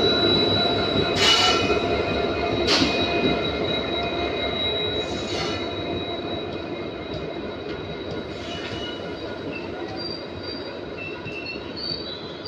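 Indian Railways WDP4D diesel locomotive running past, then passenger coaches rolling by: a steady rumble and rattle of wheels on rail with a faint thin high whine. Two loud clanks come in the first three seconds, and the sound grows gradually quieter as the locomotive draws away.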